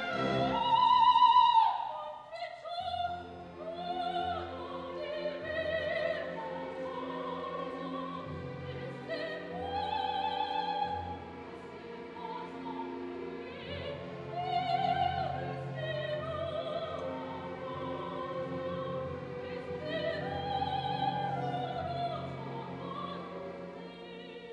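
Symphony orchestra playing classical music: a slow melody of long notes with vibrato over sustained low strings, with a loud held note at the start.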